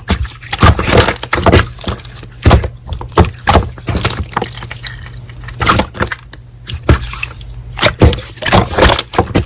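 Slime being squished and pressed by hand, making irregular wet pops and crackles several times a second.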